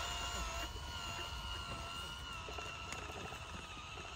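Steady, slightly wavering high whine of the handmade remote-controlled mini MF 385 tractor's drive motor as it pulls a heavily loaded sugarcane trolley, over a low rumble.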